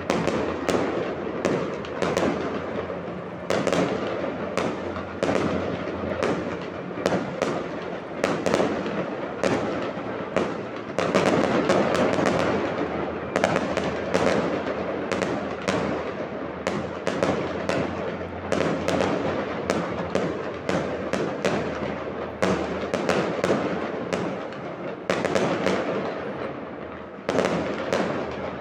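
Aerial fireworks display: a dense barrage of bangs in quick succession, almost without a break, easing off briefly near the end.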